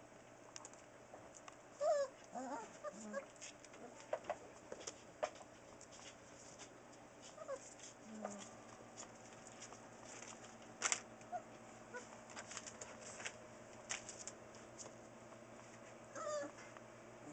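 Newfoundland puppies giving short squeaky whimpers: a few about two seconds in, one around eight seconds and more near the end. Many small scattered clicks and rustles run between them.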